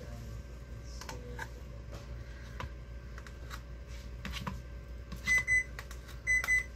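A spoon clicks and scrapes faintly against plastic while sour cream is spooned into a small container. About five seconds in, a kitchen appliance timer starts beeping with short, high beeps in runs about a second apart, signalling that the cooking is done.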